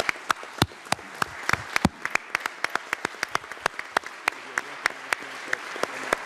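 A roomful of people applauding, steady dense clapping with a few loud claps close by.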